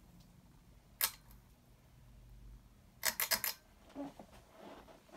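Ceiling fan pull-chain switch clicking as the fan's chain is pulled: one sharp click about a second in, then a quick run of about four clicks three seconds in.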